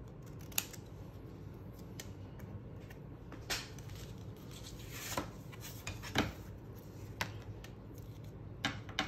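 Paper and craft tools being handled on a work table: about seven irregularly spaced sharp clicks and brief rustles over a low steady hum.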